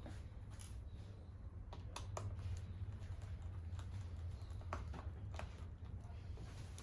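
Scattered light clicks and taps of small tools and parts being handled on an opened MacBook Pro, about seven in all, over a steady low hum.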